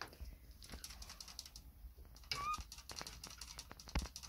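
Scops owl giving a single short, rising call note about two and a half seconds in, over scattered light clicks and taps, with one sharper tap near the end.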